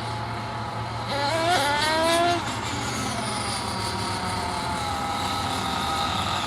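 Small 28 cc engine of a large-scale Land Overlord RC truck running, revving up with a rising whine about a second in, then dropping back and running steadily.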